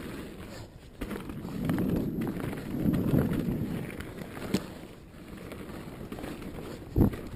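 Mountain bike riding down a dirt trail: tyres rolling and the bike rattling over rough ground, with a few sharp knocks from bumps, the loudest about seven seconds in.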